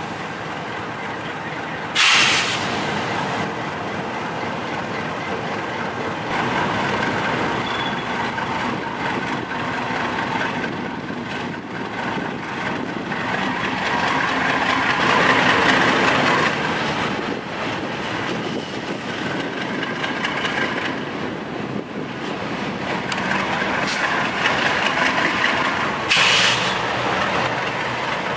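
Diesel freight locomotive running slowly past, hauling a long train of hopper wagons, with the wagons' wheels rolling on the rails. The sound swells as the locomotive comes closest, around the middle. There are two sudden, loud, short hisses, one about two seconds in and one near the end.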